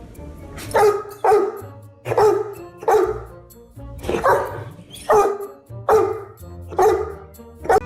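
A dog barking repeatedly, about nine single barks at irregular intervals of roughly a second.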